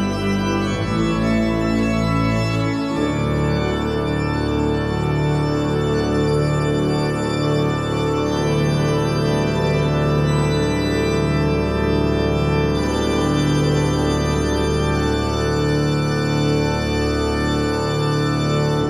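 Church pipe organ playing the loud closing bars of a toccata on a hymn tune: full, sustained chords, with a deep pedal bass entering about three seconds in and held under moving chords through the final cadence.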